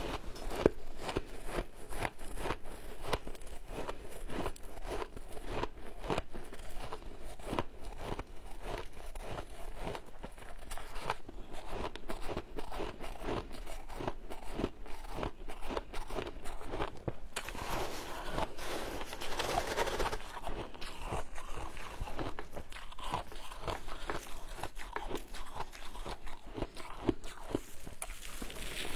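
Shaved ice crunching, bitten and chewed close to the microphone in a dense run of crisp crunches. About two-thirds through there is a softer stretch of scraping and rustling as gloved hands scoop and pack the ice.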